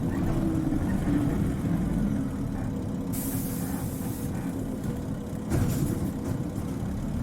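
Isuzu Cubic KC-LV380N city bus heard from inside: the diesel engine runs with a steady low drone. About three seconds in, compressed air hisses out for about a second, typical of the air brakes; a brief knock follows a little after five seconds.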